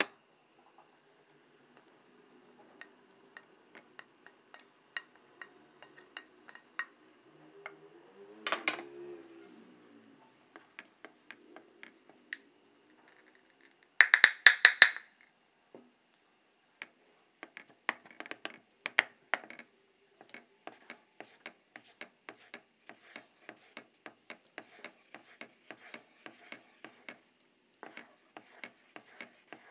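Kitchen utensil sounds at a pan of white sauce: clicks as corn and mushrooms are tipped in from a plate, a ringing knock about eight seconds in, and a loud clatter around fourteen seconds as a container is knocked on the pan rim. Then a wooden spatula stirs the sauce, tapping and scraping the pan about twice a second.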